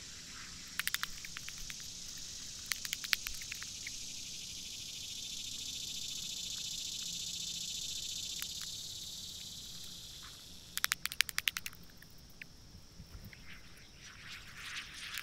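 Digging in dry, stony hillside soil with a mattock and by hand: quick clusters of sharp scraping clicks about a second in, around three seconds and around eleven seconds. A steady high hiss swells up in the middle.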